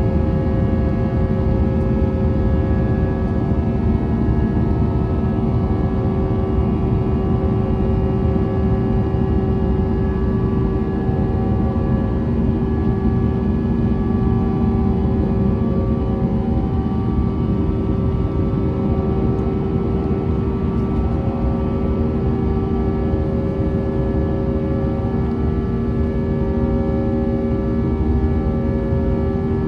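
Airbus A320 cabin noise: a steady engine rumble and hum with several constant engine tones, a few of them shifting slightly in pitch in the second half.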